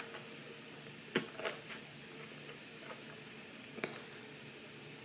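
Broccoli crunching in the mouth as it is bitten and chewed: three quick crisp crunches about a second in, and one more shortly before four seconds.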